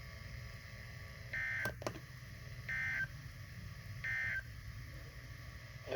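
Emergency Alert System end-of-message signal from a weather radio: three short, identical bursts of warbling digital data tone, a little over a second apart. Two sharp clicks follow just after the first burst, over a low background hum.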